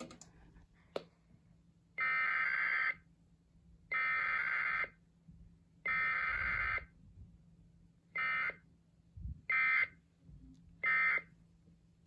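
Sage EAS ENDEC sending a Required Weekly Test: three SAME header data bursts of about a second each, spaced about two seconds apart, then three shorter end-of-message bursts. The bursts are the buzzy digital squawks of EAS data tones.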